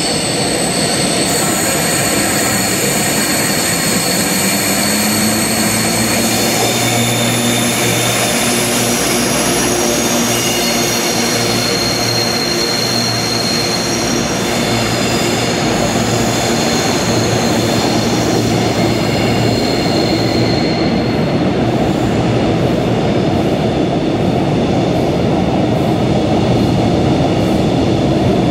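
Class 92 electric locomotive and its sleeper coaches running through the station: a steady rumble with several high whining tones, one rising in pitch early on as the locomotive draws near. In the later part the coaches roll past with regular wheel clicks.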